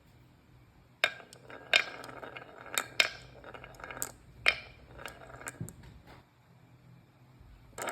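Marbles clicking and clacking against each other and the track in a string of sharp knocks for about four seconds. A dense, louder rattle of rolling marbles begins right at the end.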